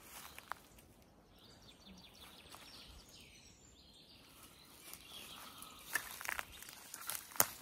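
Footsteps crunching and rustling through dry leaf litter on the forest floor, starting about five seconds in, with a sharp crack near the end. Faint birdsong is heard in the first half.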